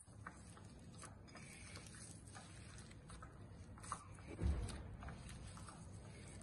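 Boiled potatoes being mashed by hand in a bowl: faint soft squishing with scattered small ticks, and one dull knock about four and a half seconds in.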